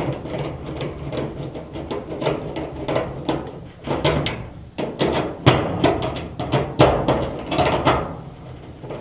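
Quick metallic clicks, taps and rattles as the range cord's wire terminals and screws are worked onto an electric stove's terminal block. The clicks come thickest and loudest in the second half.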